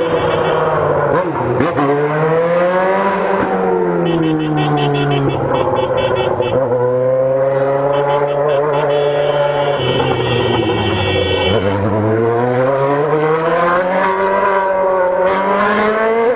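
Motorcycle engine heard from the rider's seat, its pitch repeatedly falling and rising every few seconds as the rider eases off and accelerates between cars.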